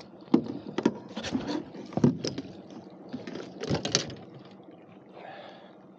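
Irregular splashing and knocks as a hooked pike thrashes at the surface beside the boat while it is played toward the landing net. The sounds come in quick separate bursts during the first four seconds, then die down.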